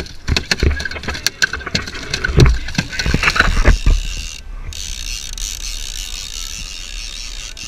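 Rapid knocking and clattering on a fibreglass boat deck from a freshly landed small tuna thrashing beside the gaff, stopping suddenly about halfway through; then a steady hiss.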